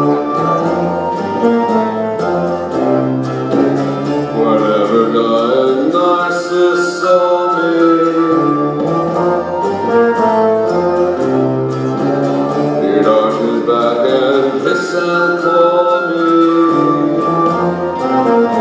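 A live pop band plays an instrumental passage, keyboards over a bass line, with a phrase that comes round about every eight seconds.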